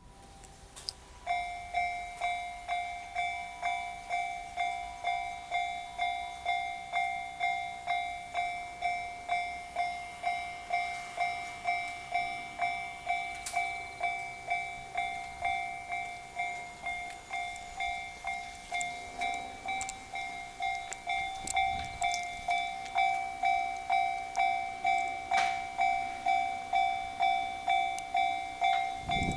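Japanese level-crossing alarm, on a barrier-equipped crossing, starting about a second in and then ringing a steady run of evenly spaced electronic dings, a little under two a second: the warning that a train is approaching.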